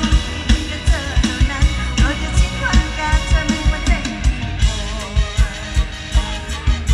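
Live Isan mor lam band music at a concert: a fast, steady kick-drum beat with a wavering lead melody over it in the first few seconds, thinning to mainly the drum-and-band groove after.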